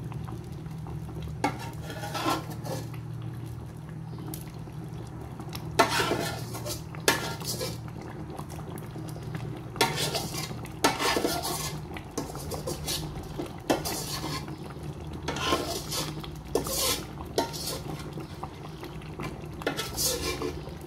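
A spoon stirring a thick pot of dal and curry for sambar, scraping and clinking now and then against the metal pot, over a steady low hum.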